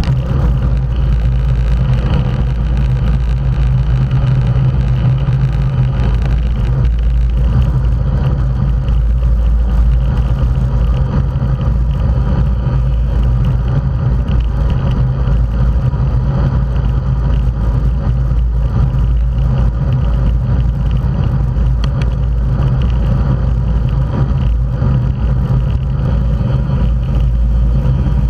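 Steady wind rumble on the microphone of a camera on a road bike riding at racing speed, with road and tyre noise from the bunch of bicycles around it.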